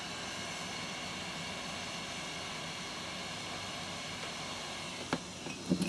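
Heat gun blowing with a steady hiss, softening hot glue. A sharp click about five seconds in.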